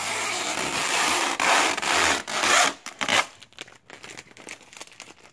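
Vinyl wrap film being peeled off a car's body panel: a continuous ripping, rubbing noise for about three seconds, then a few faint clicks and rustles.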